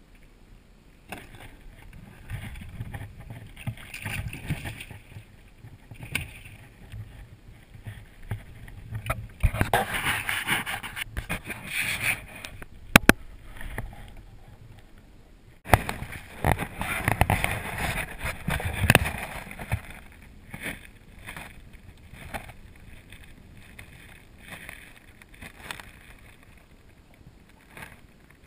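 Handling noise on a small fishing boat: irregular knocks, clatter and rustling from gear and hands on the deck, with a sharp click about halfway through.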